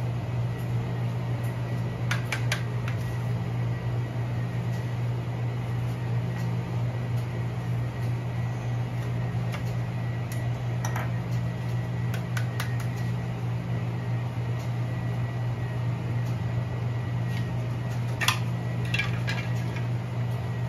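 Espresso grinder parts being handled during cleaning: a few light metallic clinks and taps scattered through, over a steady low hum.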